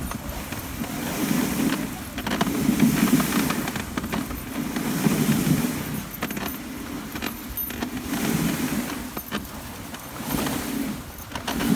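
Dog sled running over glacier snow: a low rushing from the runners and wind that comes in surges about every two seconds, with light clinks and jingles from the harness gear.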